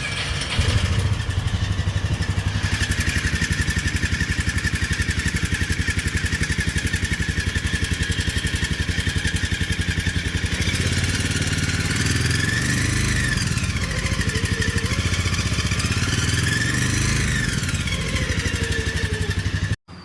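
2018 Polaris Ranger 500's engine running with a steady high-pitched whine over it. Twice in the second half the engine is revved and the whine rises and falls in pitch along with it. The sound cuts off suddenly near the end.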